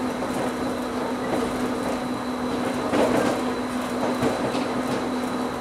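Bombardier CITYFLO 650 rubber-tyred metro train running along its guideway, heard from inside the front car: steady rolling noise with a steady electric hum, and one thump about three seconds in.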